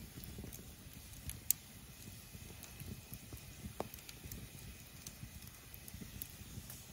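Wood campfire crackling, with scattered sharp pops; the loudest pop comes about a second and a half in.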